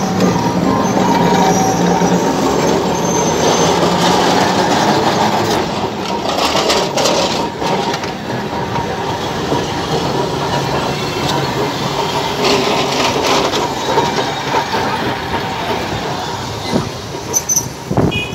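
Alexandria tram cars rolling past close by, their steel wheels rumbling and clattering on the street rails in a steady, loud run. About six seconds in, and again about thirteen seconds in, there is a louder stretch with more high-pitched noise.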